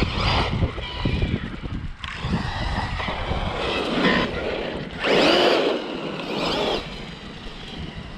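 Electric RC side-by-side's motor whining up and down in pitch as the throttle is worked, with tire and dirt noise underneath. The loudest run of acceleration comes about five seconds in and lasts nearly two seconds.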